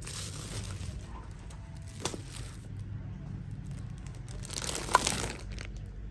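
Clear plastic garment wrappers crinkling and rustling as packaged clothes are handled. There is a sharp click about two seconds in, and a louder rustle with a sharp crackle near the end.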